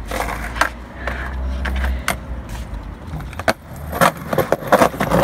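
Skateboard clattering on concrete as it is picked up and stepped back on: a series of sharp clacks and knocks from the deck and trucks, bunched together near the end.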